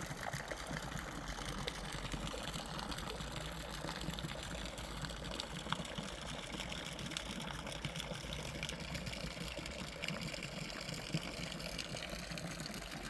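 Steady running water with a low hum underneath and small scattered ticks.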